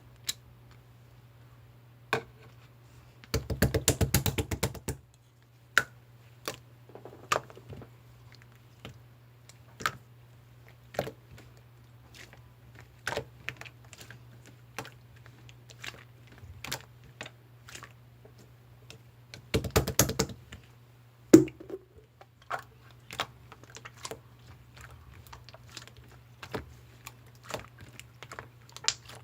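Irregular sharp clicks and taps, like small hard objects being handled, with two short flurries of rapid clicking, one a few seconds in and one about two-thirds of the way through. A steady low hum runs underneath.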